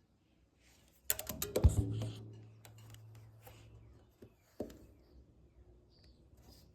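Drum kit struck one-handed with bundled dowel rods (Promark Hot Rod–style): a quick run of hits about a second in, ending on a low drum that rings for a couple of seconds, then a single hit a few seconds later.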